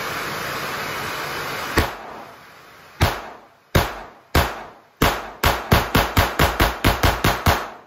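Taurus TX22 .22 LR semi-automatic pistol being fired about fifteen times. A single shot comes about two seconds in, then three slower shots, then a quick string of about ten at four to five shots a second. A steady hiss lies under the first two seconds.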